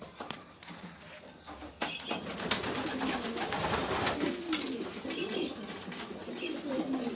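Racing pigeons cooing, repeated rising-and-falling coos that start about two seconds in and carry on, with a few light clicks among them.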